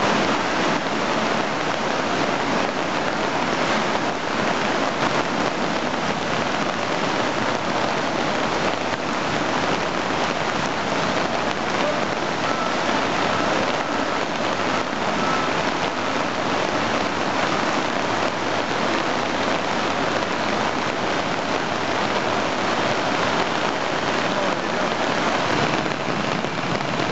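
Heavy rain pouring down onto floodwater, a steady dense hiss.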